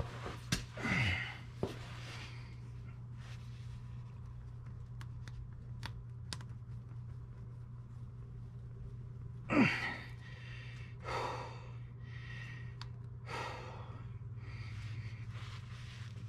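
A man's strained, effortful breathing while he forces a tire plug insertion tool into a tread puncture: two voiced, falling exhales, about a second in and about nine and a half seconds in, then several shorter breaths, with a few small clicks from the tool and his hands. A steady low hum sits under it all.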